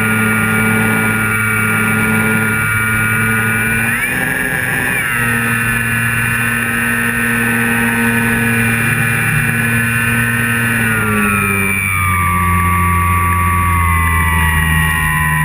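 Electric motor and propeller of a Flyzone Calypso RC plane running steadily, heard from a camera mounted under the wing. The whine rises briefly about four seconds in, then drops to a lower pitch at about eleven seconds and holds there.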